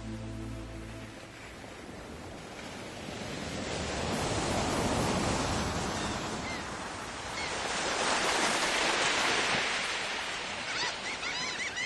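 Rushing wind noise on the microphone, swelling and fading twice, with a few short high chirps, most of them near the end. Background music cuts off about a second in.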